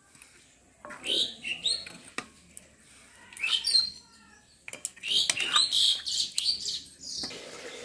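Birds chirping in short, high, rising calls, with a couple of light clicks from utensils.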